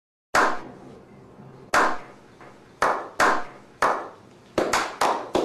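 A slow clap: a few people clapping hands, single sharp claps with a short echo, more than a second apart at first, then quickening into faster clapping near the end.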